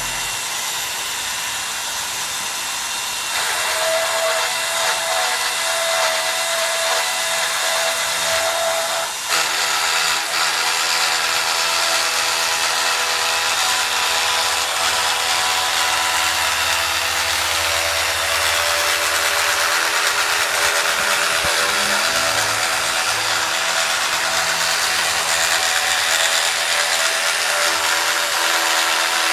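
ORS 115 orbital pipe cutting machine for stainless tube running, its electric drive motor giving a steady power-tool whine. It gets louder about three seconds in, with a short knock a few seconds later.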